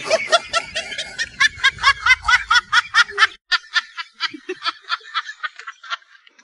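Snickering laughter: a quick string of short, pitched giggles, about seven a second, that thins out after about three and a half seconds, with a few fainter ones near the end.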